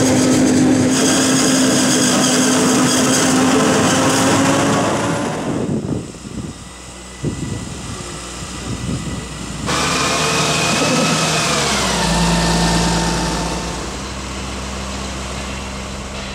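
Diesel engines of tractors and forage-harvesting machinery running in a maize field, a steady drone. The sound changes abruptly about six and again about ten seconds in. Near the end a high whine drops in pitch and a deep rumble sets in.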